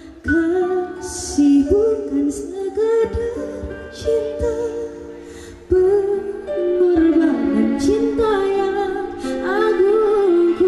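A woman singing solo into a microphone through a PA system, in long phrases of held notes with wavering, ornamented turns. One held note fades toward the middle before she starts a new phrase loudly.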